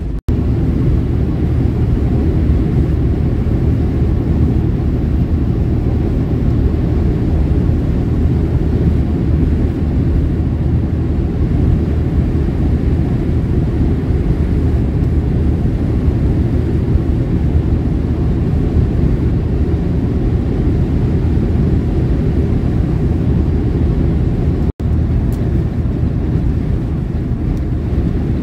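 Steady low drone of a semi truck driving on the highway, heard from inside the cab: engine and tyre noise. It drops out for an instant a few seconds before the end.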